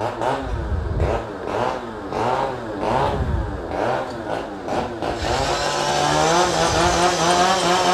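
Chainsaw engine revving up and down over and over, then holding at high, steady revs from about five seconds in.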